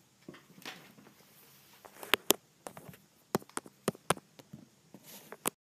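A scattering of sharp, irregular clicks and knocks with faint rustling between them, then the sound cuts off abruptly near the end.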